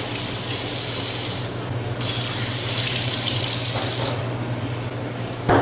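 Washroom sink tap running as hands are washed under it. The water comes in two spells, over a low steady hum, and a sharp knock near the end is the loudest sound.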